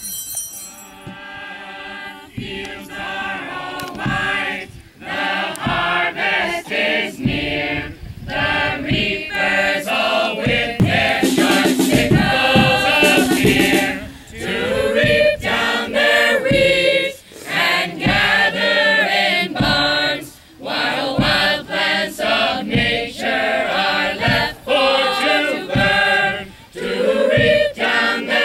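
A chorus of voices singing together, in phrases broken by short pauses.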